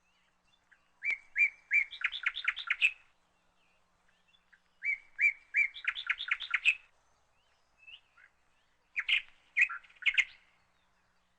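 A songbird singing three phrases, about a second in, near the middle and near the end, each a few spaced notes running into a quick trill.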